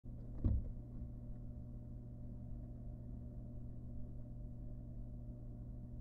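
Steady low hum with a few even tones, with a single dull knock about half a second in.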